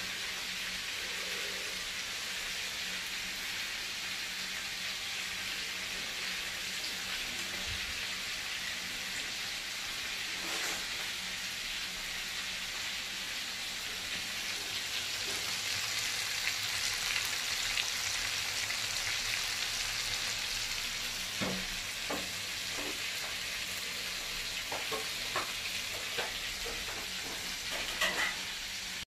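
Pieces of Spanish mackerel skin frying in hot oil, a steady sizzle. A few short knocks, as from a utensil against the pan, come in the last third.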